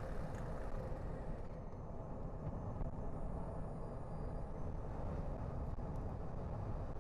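A car driving at a steady pace: even tyre and engine noise with no change in speed.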